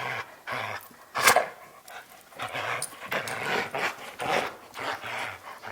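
Dog panting in quick, even breaths, about two a second, worked up from a high-arousal game of tug.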